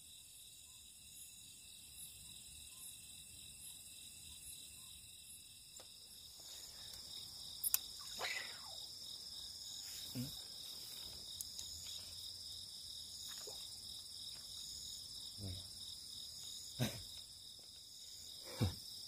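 Night insects, crickets, chirping in a steady chorus with an evenly pulsing high trill, and a few soft knocks here and there in the second half.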